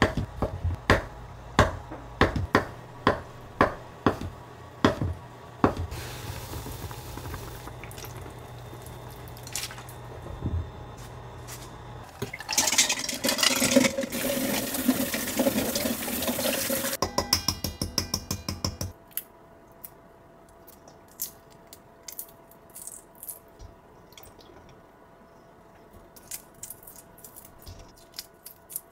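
Kitchen knife chopping through soft white blocks on a wooden cutting board, about two cuts a second. About twelve seconds in, water is poured from a saucepan over boiled quail eggs in a bowl in the sink for a few seconds, the loudest part. Then a run of quick ticks, followed by faint scattered clicks of quail eggshells being cracked and peeled.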